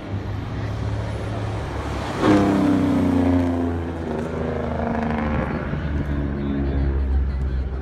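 Semi truck's engine brake firing as it runs past on the track. It comes in loudly a little over two seconds in, its pitch falling as the engine slows, and keeps going after that.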